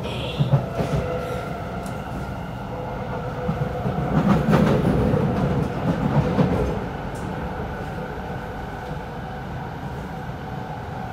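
Cabin noise of a Kawasaki C751B metro train running at speed on elevated track: a steady rumble of wheels on rail with a faint whine. About midway it grows louder and rattles for a few seconds, then settles back to an even run.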